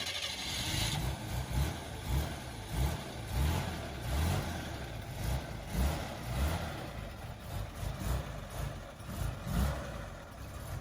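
Car engine running with an uneven, lumpy low exhaust note that surges and dips. A steady higher-pitched whine stops about a second in.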